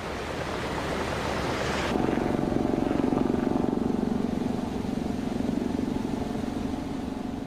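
Rushing floodwater for about two seconds, then an abrupt change to a helicopter's engine and rotor running with a steady, fast-pulsing drone.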